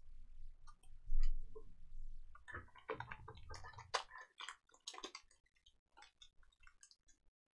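Trading cards being handled and set down on a card mat: a soft bump about a second in, then a few seconds of quick clicks and rustles of card and plastic that thin out and stop near the end.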